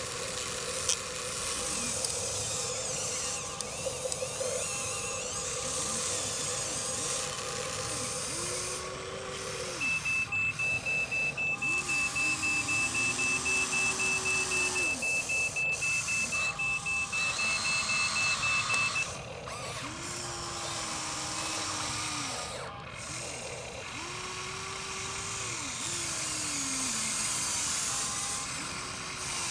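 Small electric motors of RC construction models whining up and down in short runs as the machines move. A high warning beeper sounds for several seconds in the middle, about two to three beeps a second.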